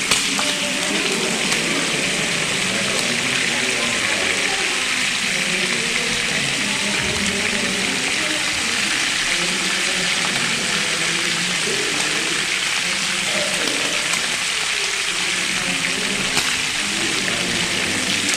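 A steady, loud hiss that does not change, with faint murmuring voices underneath.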